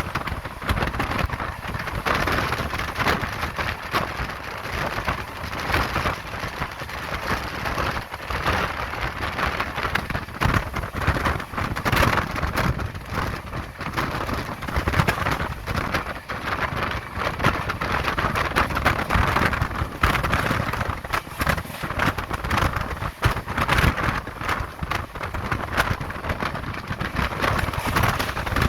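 Express train running at speed, heard from aboard a passenger coach: a steady rush of wind and wheels on the rails, with frequent short clicks and rattles from the track.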